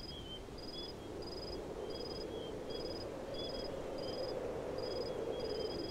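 Crickets chirping in a steady rhythm, a short high chirp about every three quarters of a second, over a low hum that slowly grows louder.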